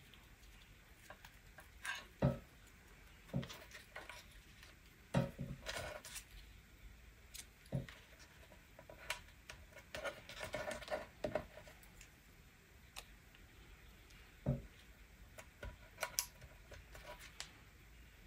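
Faint scattered taps and clicks from handling card and a marker pen on a craft cutting mat, with a short scratchy rustle of paper about ten seconds in.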